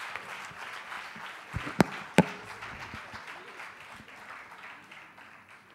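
Auditorium audience applauding, the clapping fading away toward the end. About two seconds in, two sharp loud knocks close to the microphone stand out above the clapping.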